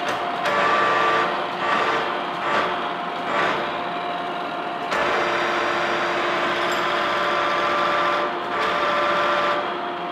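Horizontal boring mill facing a cast iron table with a spinning cutter carrying a carbide CNMG insert: a steady whine from the machine's drive, with the scraping of the insert biting into the cast iron. The cutting noise comes in short bursts at first, as the insert enters the work, and runs steadily from about five seconds in.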